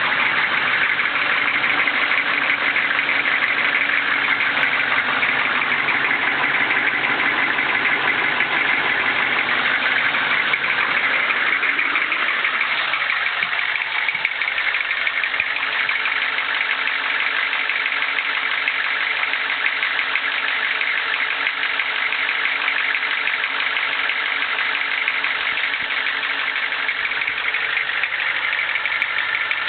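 The 6.5-litre V8 turbo diesel of a 2001 Chevrolet Express G3500 bus idling steadily. From about twelve seconds in its lower tones thin out as it is heard from further away.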